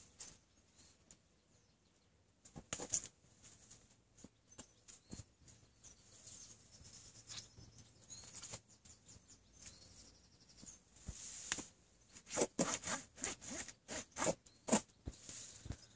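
Leather-soled high-heeled boots scraping and tapping on concrete paving slabs as they crush and grind cherry tomatoes. The sound is scattered at first, with a quick run of scrapes and taps near the end.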